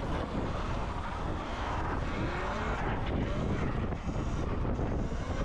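Steady wind rush buffeting the microphone, with road noise, while riding a Sur-Ron electric dirt bike.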